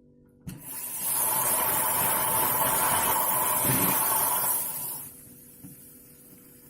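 La Pavoni Europiccola steam wand hissing as the steam valve is opened, with a steady tone running through the hiss. It starts abruptly about half a second in and is shut off about five seconds in, leaving a faint hiss.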